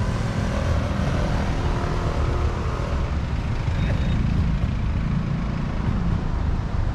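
Busy city street ambience: the steady rumble of road traffic passing.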